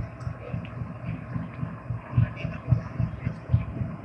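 GEU-40 diesel-electric locomotive passing slowly, its engine running with a low rumble that throbs about twice a second.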